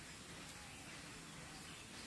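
Faint outdoor ambience: an even background hiss with faint bird calls.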